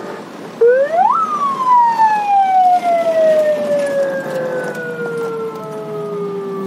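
A vehicle siren sweeps steeply up in pitch about half a second in, then winds slowly down over the next six seconds; it is the loudest sound here.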